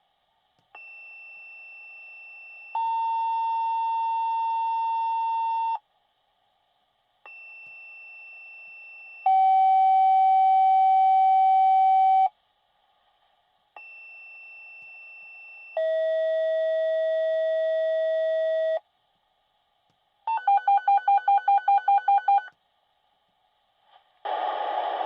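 Fire department dispatch radio sending two-tone sequential pager tones: three pages, each a quieter steady tone of about two seconds followed by a louder steady tone of about three seconds, the second tone lower in pitch on each page, to set off the pagers of the called units. Then about two seconds of rapid beeping, about five beeps a second, and the dispatcher's voice starts near the end.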